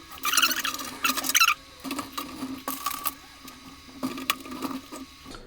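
PC power-supply cables being pushed and dragged through a tight cable-management opening in a computer case: two short bursts of scraping and rustling in the first second and a half, then a few lighter clicks and knocks of handling.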